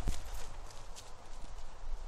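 Footsteps on grass, a few soft thuds over a low rumble.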